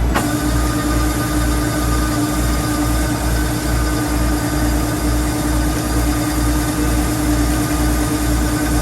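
Kubota rice combine harvester running steadily, with a low throb about three times a second under a steady mechanical hum.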